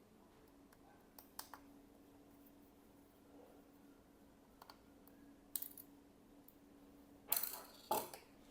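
Small, quiet clicks and taps of a T5 Torx screwdriver and fingers working the screw that holds the SSD in an opened 2017 MacBook Air, with a louder pair of clicks near the end. A faint steady hum lies underneath.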